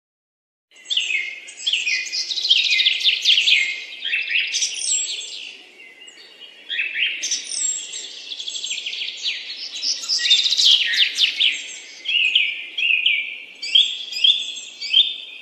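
Songbirds singing: rapid high chirps and quick falling trills in phrases with short lulls, starting just under a second in.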